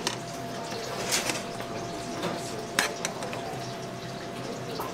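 A metal ladle clinking and scraping against a nonstick frying pan full of hot tteokbokki sauce, with a few sharp clinks over a steady kitchen background.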